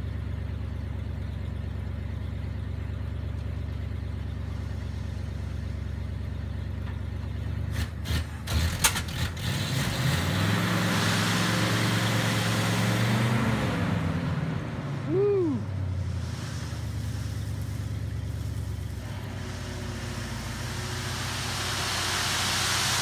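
1972 Ford F600 dump truck idling with its bed raised to dump gravel. About eight seconds in come a few sharp knocks, then the engine revs up and settles back over several seconds while gravel slides out of the bed with a rushing hiss. A short squeak comes near the middle.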